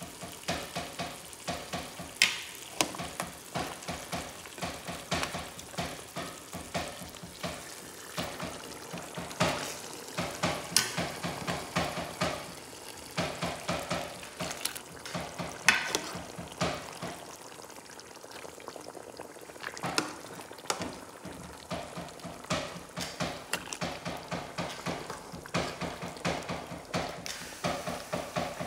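Pot of chicken cooking hard on an electric hot plate, bubbling and spattering with a dense, irregular crackle of pops and a few sharper clicks.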